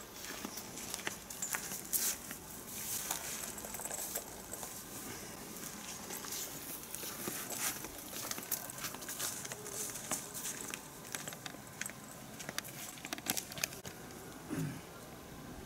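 Faint rustling with many scattered light clicks and taps, no steady rhythm.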